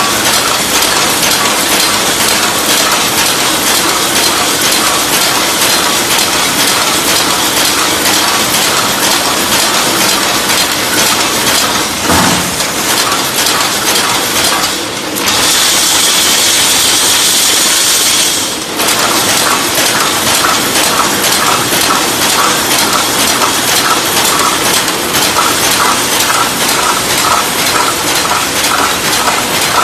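Automatic welded wire mesh panel machine running, its welding and wire-feeding mechanisms clanking in a fast, repeated clatter. A steady high hiss joins in for about three seconds midway.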